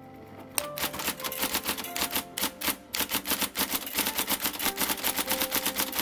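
IBM Selectric electric typewriter typing fast: a loud, rapid run of clacks as the golf-ball typing element strikes the paper, starting about half a second in.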